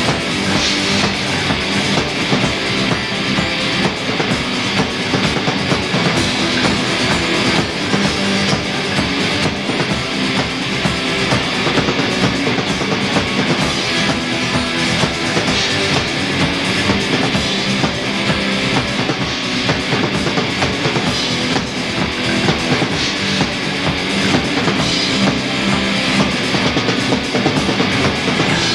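Rock band playing live, loud: drum kit and electric guitars carry on through a passage without vocals.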